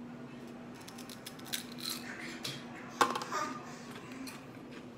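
Crunchy onion-ring snack chips being bitten and chewed: a run of small crisp crackles, with louder crunches about a second and a half in and again at three seconds.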